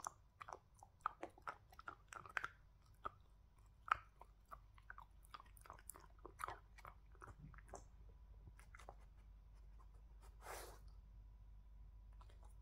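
Dog chewing and crunching a treat: a quick run of sharp crunches and mouth clicks that thin out after about seven seconds, with one short burst of noise about ten seconds in.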